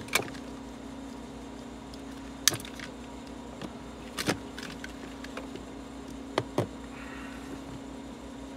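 A handful of sharp clicks and taps from a wiring connector and a small screwdriver being handled under a car dashboard, the loudest about two and a half seconds in, over a steady low hum.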